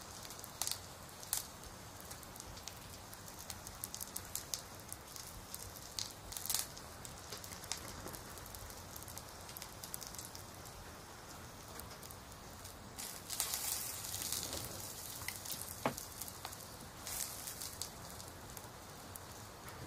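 Steady soft hiss dotted with frequent small crackles and pops.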